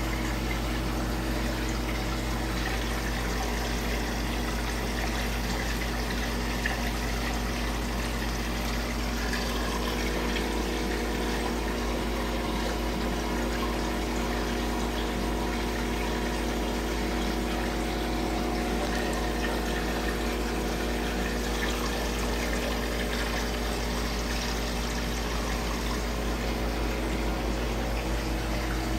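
Aquarium water pump or filter running with a steady hum, water bubbling and trickling over it.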